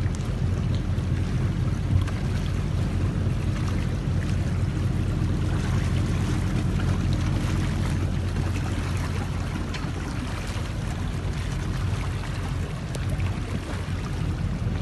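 Boat engine running with a steady low hum under a rush of water.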